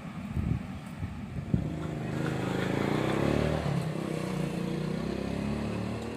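A vehicle engine passing by, its pitch falling as it goes past, after a few low knocks in the first second and a half.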